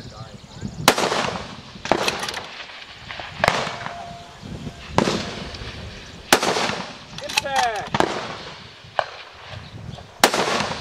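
Scoped precision rifle firing from a bipod, a string of sharp shots roughly one every second to second and a half during a timed course of fire.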